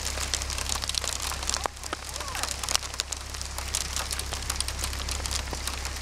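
Hail pelting a car's windshield: a dense, irregular patter of small sharp ticks on the glass.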